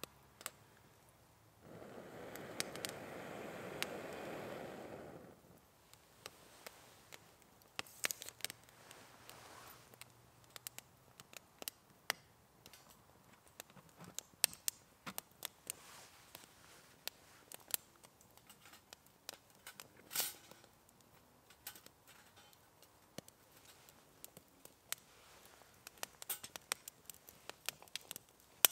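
Wood fire crackling in a Bushbox stove, with scattered sharp pops and snaps throughout. Near the start a steady rushing noise lasts a few seconds.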